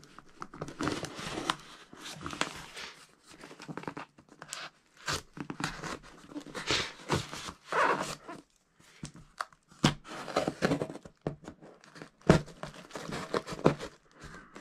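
A big serrated knife slitting packing tape along the seams of a cardboard shipping box, in irregular scraping, tearing strokes, with the cardboard rustling and a few sharp knocks.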